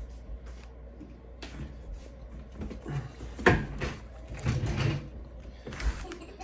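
Scattered handling knocks and scrapes, with one sharper knock about three and a half seconds in.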